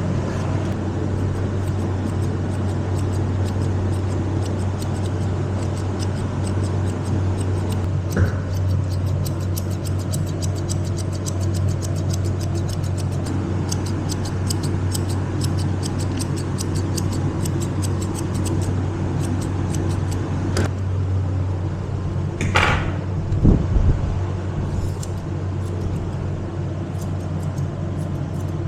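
Grooming scissors snipping through dog hair in a long run of quick snips, over a steady low hum. A couple of louder knocks come about three-quarters of the way through.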